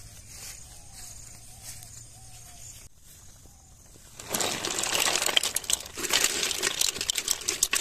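Boiled freshwater mussels being handled in the pot: from about four seconds in, a loud rustling clatter of shells and water, dense with quick clicks.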